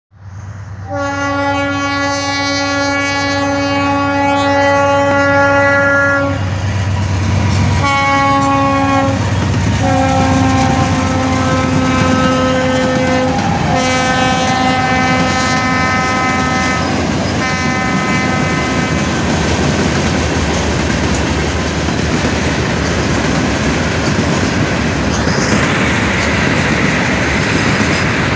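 Norfolk Southern diesel freight locomotive's air horn sounding a series of blasts for the grade crossing: a long one of about five seconds, a short one, then longer ones. After that, the freight cars rumble past, their wheels clacking over the rails.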